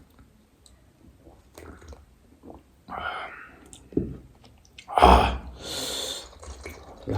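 Close-miked eating sounds: soft mouth clicks, bites and chewing, with a louder, sharp mouth noise about five seconds in, followed by about a second of hiss.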